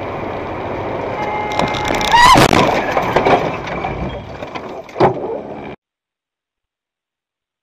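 Dashcam audio of a car driving, then a loud crash about two seconds in, with a short rising squeal and a clatter of knocks, and another sharp knock near five seconds. The sound cuts off abruptly near six seconds.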